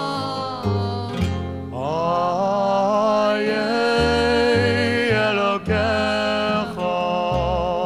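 Music: a male vocal group holding long notes in harmony over acoustic guitar and a plucked bass line, from a 1967 stereo vinyl record.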